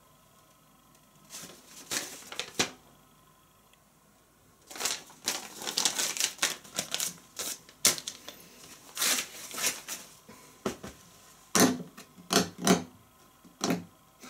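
Paper letters and envelopes rustling and crackling as they are handled, in irregular clusters of short crisp sounds. There is a quiet gap near the start, and the busiest handling comes about five to ten seconds in.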